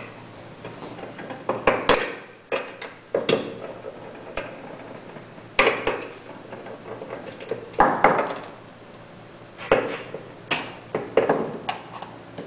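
Metal clinks and knocks of a wrench, small bolts and an aluminium engine cover being handled and set down on a hard table while a motorcycle engine is taken apart. About eight separate clinks come a second or two apart, some ringing briefly.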